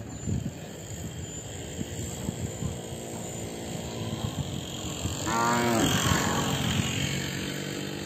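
A cow in a walking herd of cattle moos once, about five seconds in, for about a second. A low steady hum and scattered low thuds run underneath.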